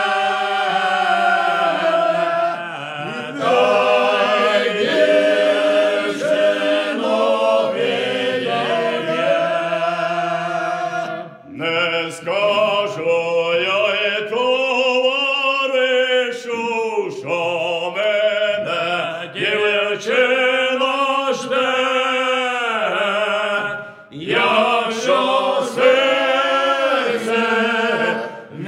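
Village singers performing a Ukrainian lyrical folk song unaccompanied, with long drawn-out sung lines. They break off briefly twice, for a breath between phrases.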